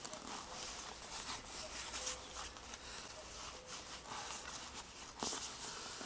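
Soft rustling and rubbing of a tall rubber boot's shaft being folded by hand, with a few light knocks, one sharper near the end.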